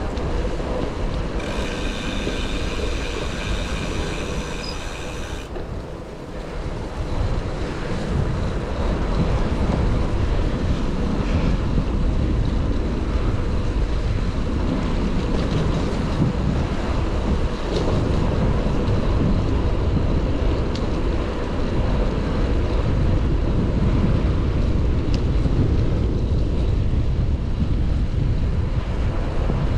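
Wind buffeting the microphone, with road rumble from a moving bicycle. A high, steady squeal with several tones runs for about four seconds near the start.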